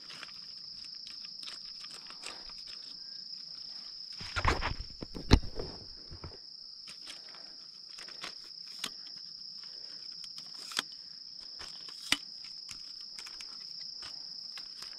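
Clicks and knocks of a lightweight aluminium tripod's leg latches and legs being handled as it is extended, loudest in a cluster about four to five and a half seconds in, with single clicks later on. Under them, a steady high insect drone.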